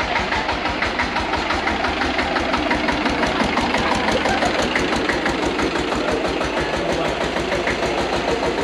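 Vintage tractor engine running at a slow, even chug of about eight exhaust beats a second as the tractor drives past close by.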